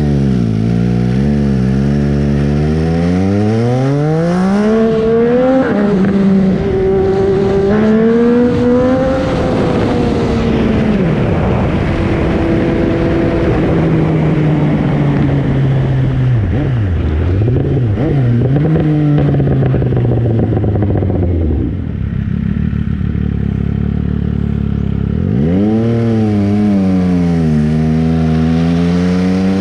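MV Agusta Brutale 800's three-cylinder engine under way, revving up through the gears: the note climbs, drops at each shift and climbs again, then eases off. About three-quarters of the way through the engine note fades for a few seconds before rising again near the end.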